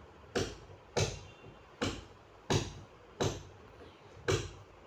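A steel spoon knocking against a frying pan about six times while the bread pakoras are turned in hot oil, with a faint sizzle of oil between the knocks.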